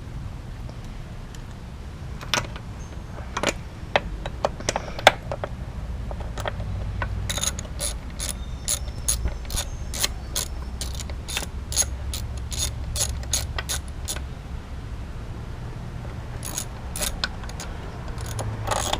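Ratchet wrench clicking as new spark plugs are screwed into a Yamaha 25 hp four-stroke outboard. A few scattered clicks and knocks come first, then an even run of about three clicks a second, and a second short run near the end.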